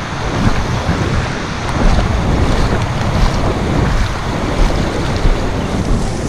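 Small waves washing through shallow surf, with wind blowing on the microphone.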